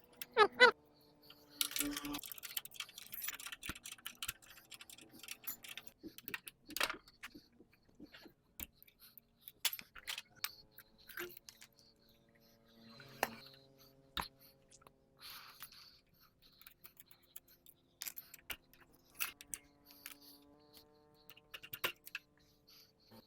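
Irregular metallic clicks, taps and clinks of hand tools working on a motorcycle engine.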